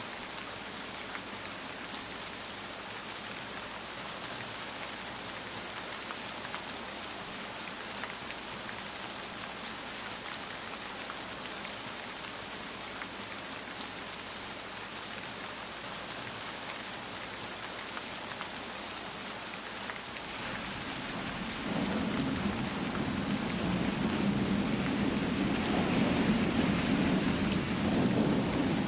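Steady rain falling. About two-thirds of the way through, a long low roll of thunder builds and grows louder, lasting to the end.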